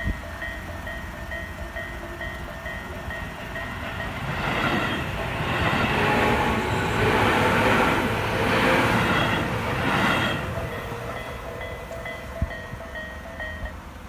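Japanese level-crossing warning bell ringing in an even, repeating ding. A Tobu Ogose Line electric commuter train passes over the crossing from about four seconds in to about ten seconds in, its wheels and motors louder than the bell. The bell stops just before the end, as the barriers lift.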